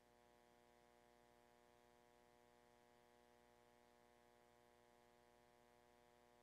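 Near silence: a faint, steady electrical hum and hiss on the audio line.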